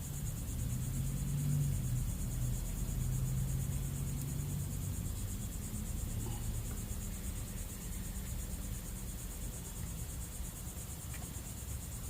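Crickets chirping steadily in a fast, even trill, over a low rumbling hum.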